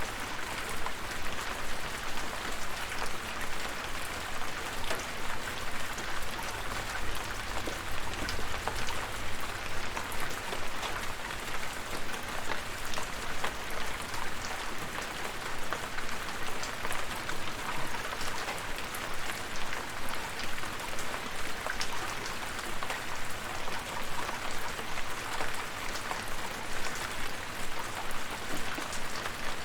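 Steady rainfall: an even hiss of rain with many individual drops ticking against a surface throughout.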